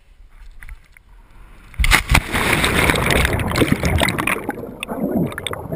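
A person jumping from a rock into a deep pool: a loud splash about two seconds in, then muffled underwater churning and bubbling as the camera goes under with the jumper, which drops away near the end as it surfaces.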